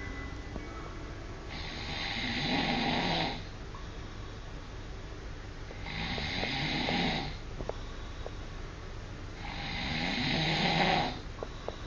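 A person snoring: three long, loud snores about four seconds apart, each lasting a second or two, with quieter gaps between breaths.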